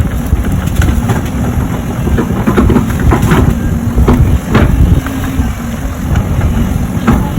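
Zoomlion earthmover's diesel engine running under load, with several sharp cracks and knocks from the clearing work about three to four and a half seconds in and again near the end.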